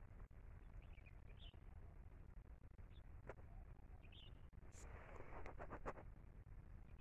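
Near silence: faint outdoor background with a few short, faint bird chirps. A brief patch of soft rustling and clicks comes between about five and six seconds in.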